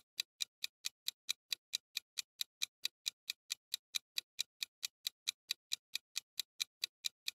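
Clock-style ticking countdown-timer sound effect: quick, even ticks, about four to five a second, counting down the time left to answer the quiz question.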